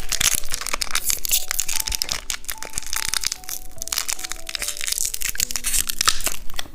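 Close-up crunching and chewing of hard candy from a Kinder Surprise egg, a dense run of crackles and snaps, over soft background music.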